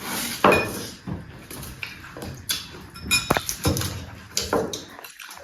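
Close-miked eating: irregular clinks and clicks of cutlery against plates, mixed with chewing and other mouth sounds.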